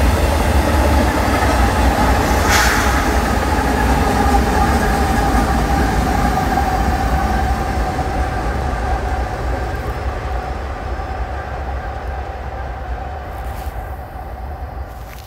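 Union Pacific intermodal freight train rolling past, a steady rumble of wheels and cars with a thin steady whine above it. A brief sharp clank comes about two and a half seconds in, and the sound fades over the last several seconds as the train moves away.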